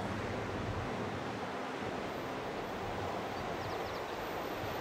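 Steady rush of sea surf breaking on the shore, mixed with wind on the microphone.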